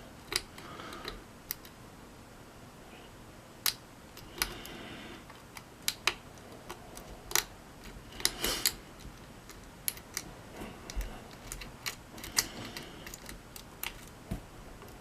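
Small metal clicks and scrapes of a hook pick working the pins of a mortise lock cylinder held under a pry-bar tension tool. The clicks come irregularly, one to a few a second, with short scraping runs now and then.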